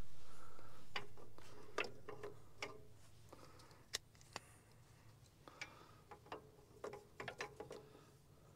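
Scattered light clicks and metal taps of hand tools being handled while working on a tractor's oil filter. They come singly and in small clusters over a low rumble that fades away in the first few seconds.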